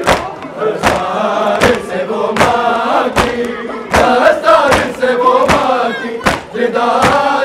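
Crowd of men chanting a mourning lament (noha) in unison, with rhythmic matam: many hands striking chests together about every three-quarters of a second.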